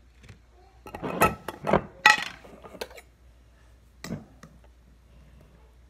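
Handling sounds of putting a sandwich together: a burst of clattering and rustling about a second in, as bread, a plate and utensils are moved about, then a few light knocks and clicks.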